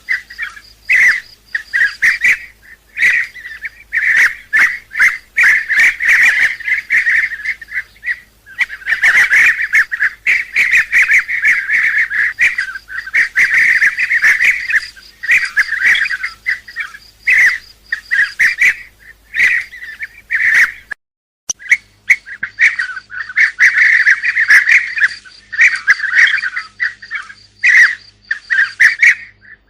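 Bee-eaters calling: many short calls in quick succession, overlapping as from a flock. The calls stop for under a second about two-thirds of the way through, then resume.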